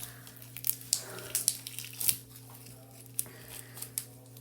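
Foam-bead slime being squeezed and worked by hand, crackling and popping in irregular sharp clicks.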